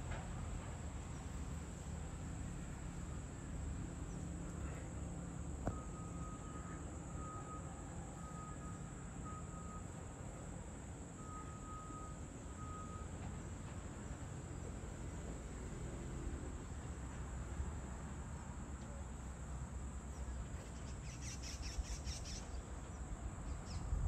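Rural outdoor ambience: a steady low rumble, with a thin high call pulsing on and off irregularly for several seconds starting about six seconds in, and a short burst of high chirps near the end.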